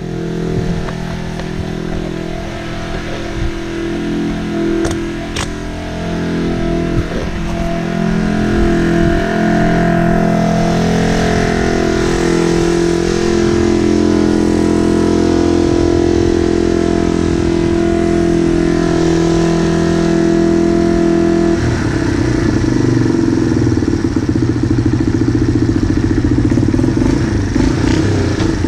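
Motorcycle engine running at low, fairly steady revs as the bike is ridden slowly, with an abrupt change in the engine note about three-quarters of the way through.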